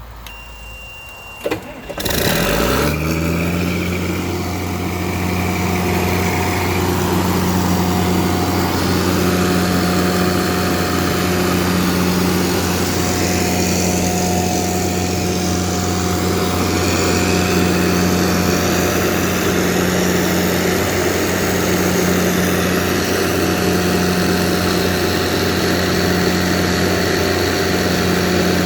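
Kohler diesel generator starting: after a short click it cranks and catches about two seconds in. It then settles into steady running at constant speed.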